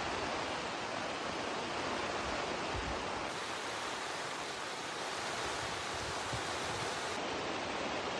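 Heavy downpour: rain pouring down in a dense, steady hiss.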